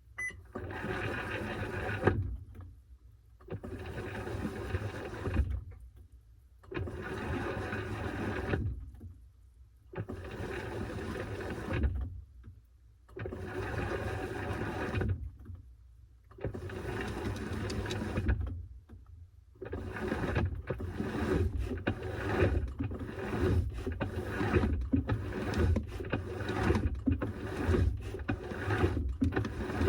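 Washing machine churning a load of towels, the drum turning in bursts of about two seconds with pauses of about a second between them, changing to quicker, shorter strokes for the last ten seconds.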